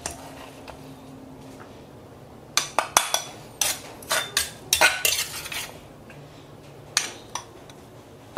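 Stainless-steel spoon scraping and clinking against the inside of a granite mortar as pounded chili, garlic and herb paste is scooped out. The scrapes and knocks come in a quick run starting about two and a half seconds in, with one more knock near the end.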